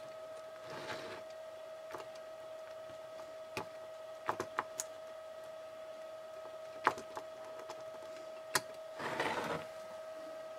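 Small scattered clicks and taps of a model train motor's plastic and metal parts being handled and fitted together by hand, with soft rustles, over a steady faint hum.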